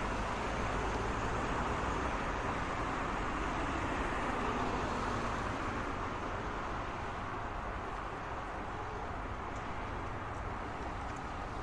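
Steady road traffic noise: a continuous rush of tyres and engines from passing cars, easing slightly about halfway through.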